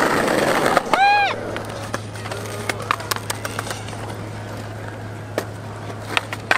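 Skateboard wheels rolling over asphalt, then scattered sharp clacks of boards hitting the ground. A short high-pitched call rises and falls about a second in.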